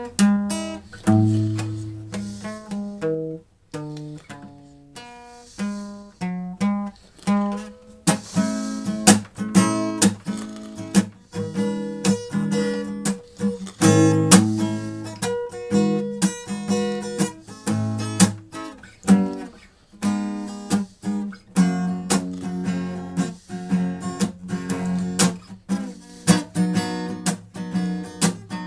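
Music: acoustic guitar, plucked notes and strummed chords at an easy pace.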